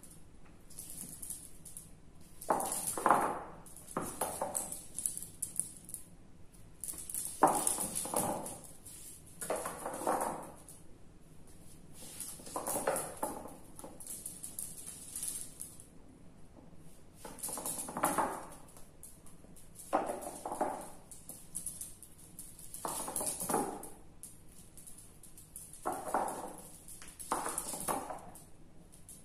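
Small dachshund's claws skittering on a polished hardwood floor as it dashes after a tennis ball, in about ten short bursts every two to three seconds.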